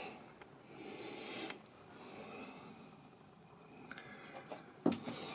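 Faint breaths close to the microphone with light handling noise, a few small ticks and a soft knock near the end.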